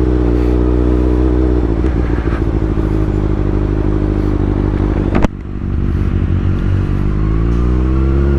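2015 Kawasaki ZX-6R 636's inline-four engine through a Racefit exhaust, running steadily with its pitch dipping a little after about two seconds. About five seconds in there is a single sharp click, after which the sound is quieter and duller. Near the end the revs climb again.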